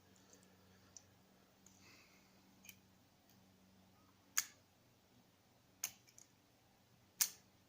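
Four sharp, separate metallic clicks of a screwdriver and small screws being handled while screws are taken out of a Mikuni carburetor, over a faint steady hum.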